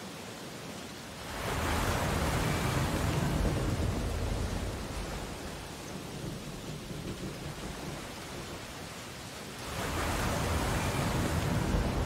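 Sea waves breaking on a shore: a steady hiss of surf, with two waves surging in louder, one just over a second in and another near the end.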